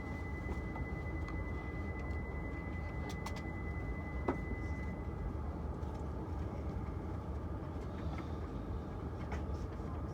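Shinkansen running at speed, heard from inside the passenger cabin: a steady low rumble and rush. A thin, steady high tone stops about halfway through, there is a single light knock about four seconds in, and a few faint clicks.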